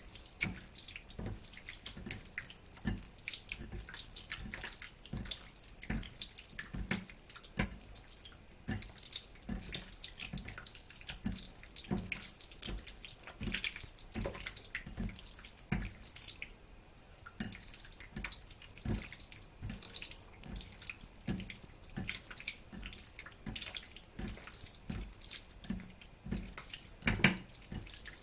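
Wet squelching of a hand squeezing and mixing pork pieces in a bowl of soy-sauce and starch marinade, in repeated irregular squishes about two a second, with one sharper, louder squish near the end.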